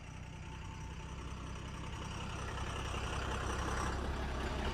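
Heavy vehicle engine running steadily with a low hum, slowly growing louder.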